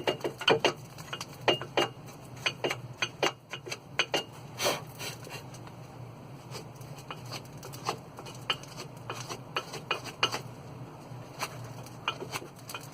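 Short, irregular scrapes and clicks of a brush being worked over a car's front disc brake caliper and bracket. The strokes come thick in the first few seconds and thin out later.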